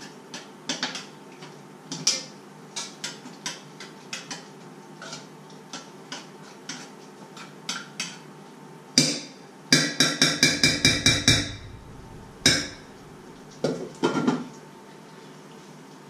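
Metal spoon clinking against a stainless steel pot while stirring, light taps every fraction of a second. About ten seconds in comes a quick run of about ten louder, ringing taps on the pot, followed by a few single knocks.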